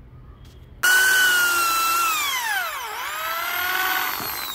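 Makita M0801B 500-watt hammer drill in drill mode, driving an HSS bit into wood. Its motor starts suddenly about a second in with a loud whine, the pitch sinks steadily to a low point about two seconds later, then climbs back up.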